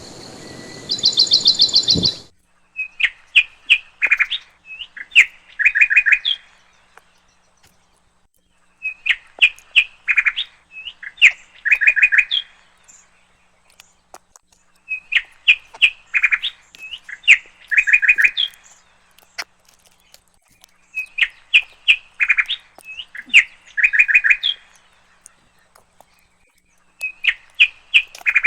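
A songbird singing the same phrase of chirps and fast trilled notes over and over, each phrase about four seconds long with about a two-second pause between. For the first two seconds a different, higher trilling call plays over background hiss, then cuts off.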